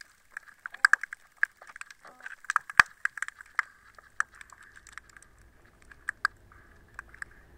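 Underwater recording from a lagoon: a dense, irregular crackle of sharp clicks and snaps that thins to a few scattered clicks over a faint low hum in the second half.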